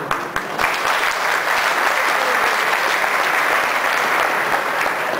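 Audience applauding: a few separate claps at first, then dense clapping from the whole crowd about half a second in, held steady.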